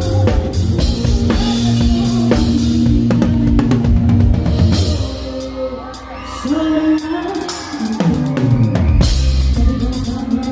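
Live band music: a drum kit keeps a beat with kick and snare, and a note is held for about three seconds early on. The band drops back about halfway through under a sliding vocal line, then the full band comes back in.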